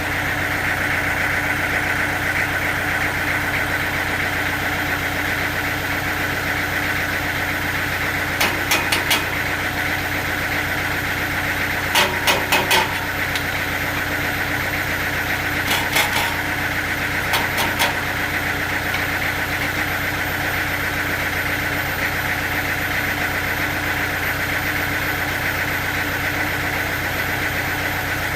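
Sawmill machinery running steadily with a constant hum, broken four times by short clusters of rapid knocks.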